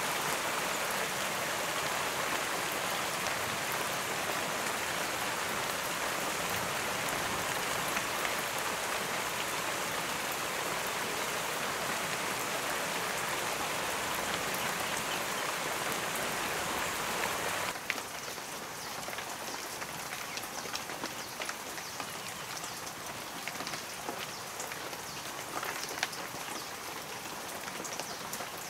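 Steady rain falling, an even hiss. About eighteen seconds in it drops to a quieter, lighter rain with scattered individual drips.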